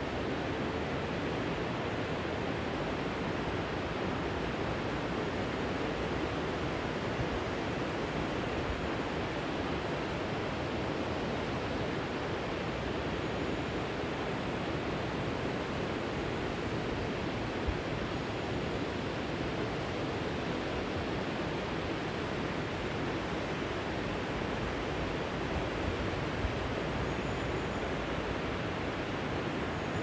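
River water spilling over a long, low weir: a steady, even noise that does not change.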